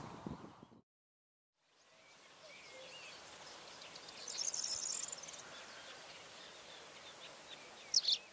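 Light outdoor ambience with small birds chirping and calling: a burst of high twittering about four seconds in and a sharp high call near the end. Before that, a low rumble cuts off under a second in, followed by a moment of silence.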